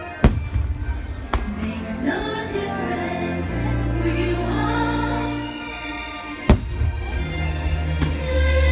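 Fireworks show soundtrack music with singing, cut by sharp firework bangs: a loud one just after the start, a smaller one a second later, and another loud one past the middle.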